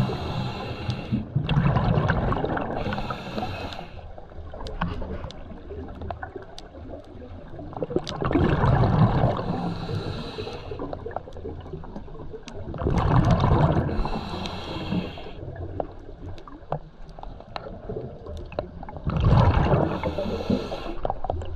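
Scuba diver breathing through a regulator underwater: a bubbling rush of exhaled air alternating with the hiss of the regulator, repeating about every five to six seconds, four breaths in all.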